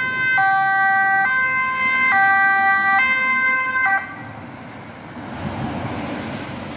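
Dutch police car's two-tone siren, alternating between a high and a low note, each held just under a second. It cuts off suddenly about four seconds in, leaving road traffic noise.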